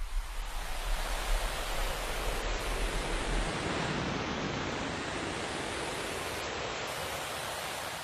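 A steady rushing hiss like static, with a low rumble under it for the first few seconds, easing off slowly near the end.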